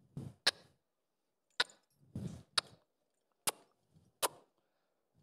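Several sharp clicks and knocks, irregularly spaced, from a saddle and tack being handled.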